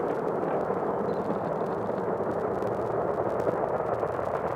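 Falcon 9 first stage's nine Merlin 1D rocket engines heard from several miles away during ascent: a steady, even rumble with a faint crackle through it.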